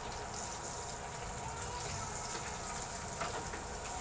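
Samgyeopsal (sliced pork belly) sizzling steadily on a tabletop grill.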